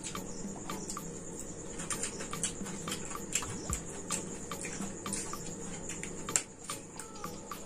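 Two people eating chowmein noodles with forks: irregular light clicks and scrapes of forks on plates, with chewing.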